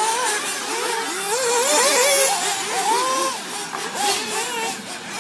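Several 1/8-scale nitro RC buggies' small two-stroke glow engines running at once, each high whine rising and falling in pitch as the cars rev and back off around the track, the whines overlapping.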